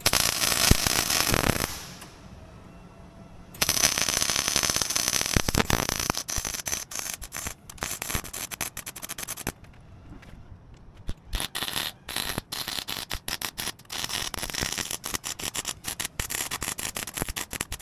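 Electric arc welder crackling as nuts are welded onto the stubs of cut-off bolts so they can be turned out. A short burst of welding, a pause, then a longer run from about three and a half seconds in that turns choppy, stopping and starting many times in quick succession.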